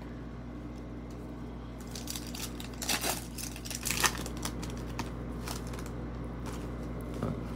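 Foil wrapper of a 2022-23 Panini Prizm Basketball card pack crinkling and tearing as it is ripped open, loudest between about two and five seconds in, then a few faint ticks as the cards are handled.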